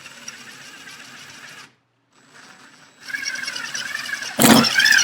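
Impact driver fitted with a drill bit, drilling out a pilot hole in a wooden table leg: it runs briefly, stops, then runs again louder from about three seconds in with a steady whine, and a sharp burst of noise near the end.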